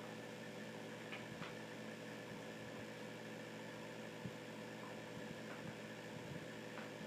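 A steady machine hum in the room, with a few faint light clicks.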